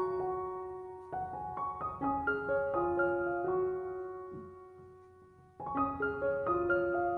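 Background piano music: short phrases of single decaying notes that fade away, with a new phrase starting about five and a half seconds in.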